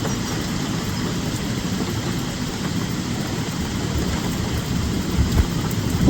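Steady rain with a low rumble of distant thunder underneath, the rumble growing louder near the end.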